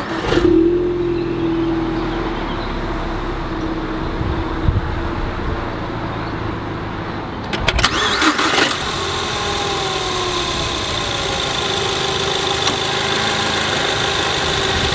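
Ford Mustang EcoBoost's 2.3-litre turbocharged four-cylinder engine starting, heard at the exhaust tips: it flares up right after the start, then settles to a steady idle. A few knocks come about halfway through, and after them the idling engine is heard from the engine bay with a steady whine.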